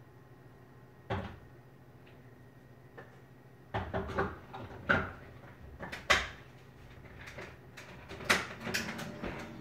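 Kitchen clatter: a string of sharp knocks and clanks, one about a second in, then a busy cluster from about four seconds in to near the end, over a faint steady hum.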